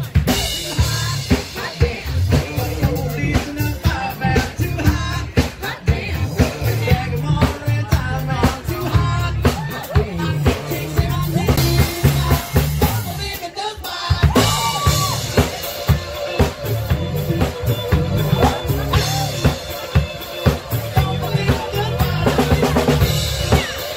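Live band playing: a drum kit keeping a steady beat with bass guitar and keyboard, and singers at the microphones. The bass and drums drop out briefly about thirteen seconds in, then the groove comes back.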